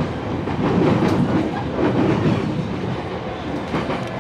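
Passenger train carriage in motion: a steady running rumble with the clickety-clack of the wheels over the rails.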